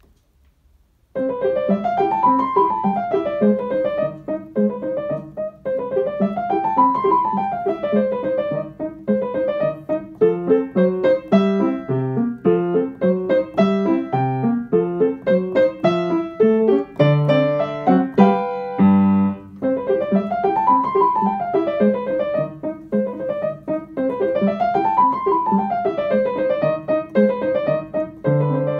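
Upright piano playing a lively solo piece, starting about a second in. A quick figure that runs up and back down repeats several times, a busier middle passage of chords and runs follows, and the opening figure returns in the last part.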